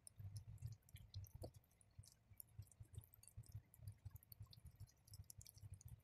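Faint, irregular wet clicks and squishes of raw chicken wing skin handled by hand as vegetable sticks are pushed inside, over a low murmur of room noise.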